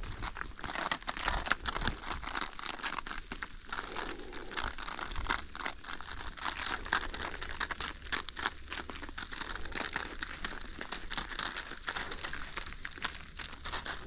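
Dense, continuous crinkling and crunching of dry leaf litter being trampled or handled, with a low rumble underneath.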